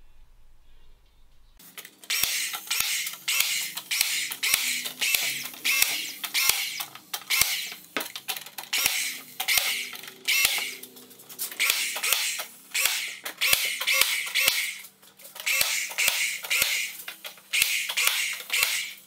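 Nail gun firing nails into a pine frame-and-panel door, a sharp snap roughly twice a second over a hiss, starting a little under two seconds in.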